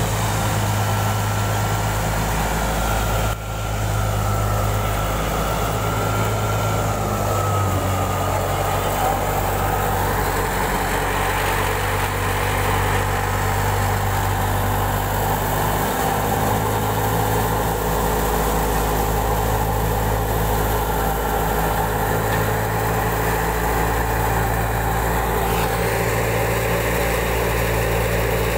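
Wheat thresher running steadily while wheat sheaves are fed into it: a constant low mechanical drone with a steady hum.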